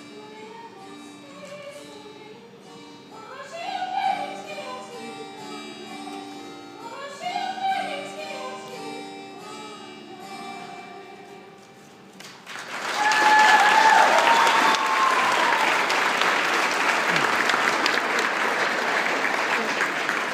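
A solo singer with keyboard accompaniment finishes a song. About twelve seconds in, a dining audience breaks into loud applause with a few whoops and cheers.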